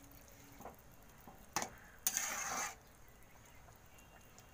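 A spatula stirring pointed gourds in a thick, watery poppy-seed gravy in a steel pan: a few light knocks against the pan, a sharp click about a second and a half in, then a short scraping stir about two seconds in.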